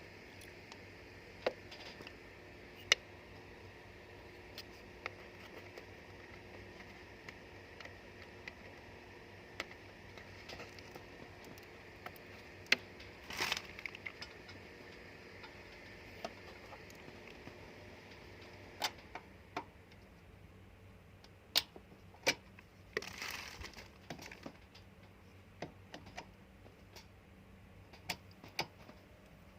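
Scattered sharp clicks and taps of a hard plastic humidifier being handled, with a couple of short rustles, over a faint steady hum that stops about two-thirds of the way through.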